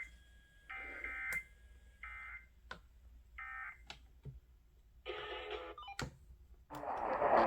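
Short bursts of EAS SAME digital data tones from a radio receiver: raspy warbling buzzes about half a second long, repeating every second and a half or so, with a few sharp clicks between them. Near the end a loud hiss of radio static comes in.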